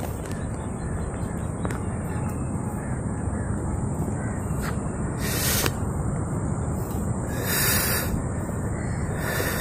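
Outdoor ambience on a brushy jungle footpath: a steady low noise with a thin, steady high tone over it, broken by three brief harsh bursts about five, seven and a half, and nine seconds in.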